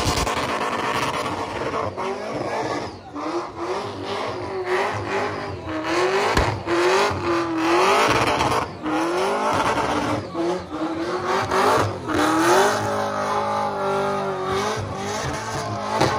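Burnout car engine revved hard over and over, its pitch swinging up and down about once a second and then holding steadier near the end, over the noise of spinning, skidding tyres.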